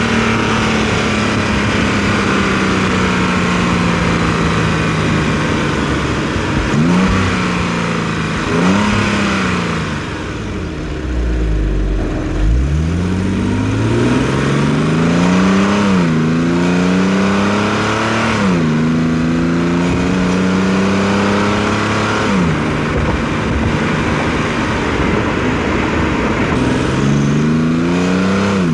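Infiniti G37 sedan's 3.7-litre V6 heard through its stock exhaust and intake while driving. The engine note falls as the car slows almost to idle about twelve seconds in. It then rises under acceleration, with a sharp drop in pitch at each of two upshifts, settles into a steady cruise, falls away, and climbs again near the end.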